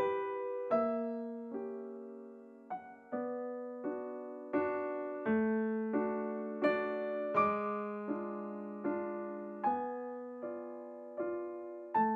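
Background music: a slow, gentle piano piece, with notes and chords struck at a steady pace about every three-quarters of a second, each left to ring and fade.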